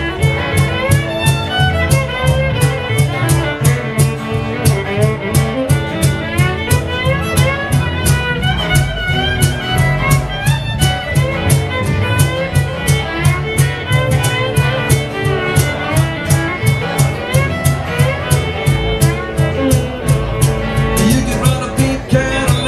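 Acoustic bluegrass band playing: fiddle, acoustic guitar and upright bass, with a steady, even beat.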